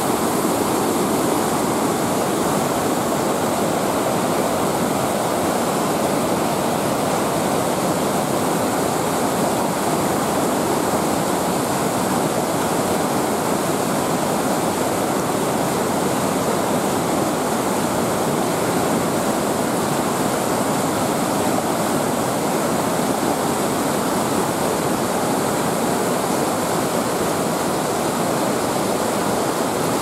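Whitewater of the Krimmler Ache mountain river rushing over boulders, with the Krimml Waterfalls crashing down. A loud, steady rush of water throughout, with no break or change.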